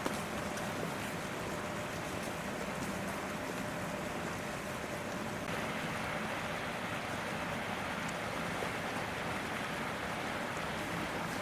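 Steady wind-like rushing background noise with no distinct events, changing slightly in tone about five and a half seconds in.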